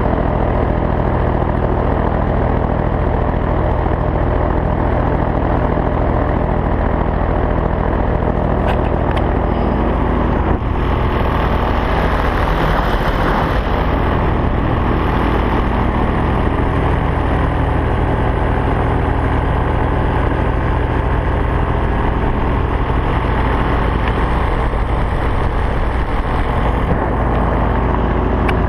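Paramotor engine and propeller running steadily in flight, a loud continuous drone with an unchanging engine note.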